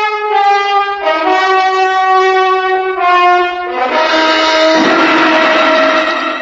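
Orchestral brass music bridge: held notes that step to a new pitch about once a second, then broaden into a full chord about four seconds in, which starts to die away near the end.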